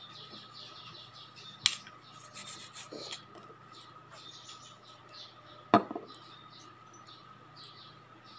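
Nail file scraping under fingernails in short, repeated scratchy strokes. Two sharp clicks, the loudest sounds, come about a second and a half in and again near six seconds.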